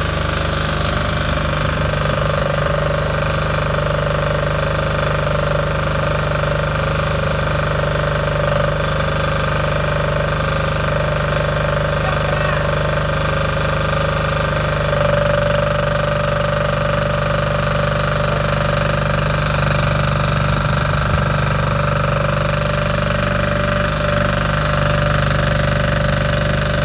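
Yanmar YDG5500E diesel generator with a single-cylinder Yanmar L100 engine running steadily with a hard knocking note. About halfway through its sound shifts, and it carries the load of an inverter arc welder whose arc crackles near the end.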